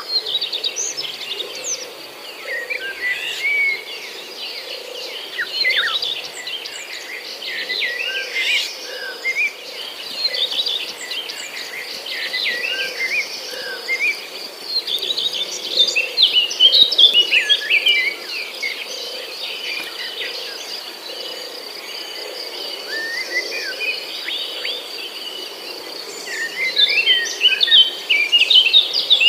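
Many small birds chirping and twittering in quick, overlapping calls, with bursts of busier calling about halfway through and near the end, over a steady high-pitched drone.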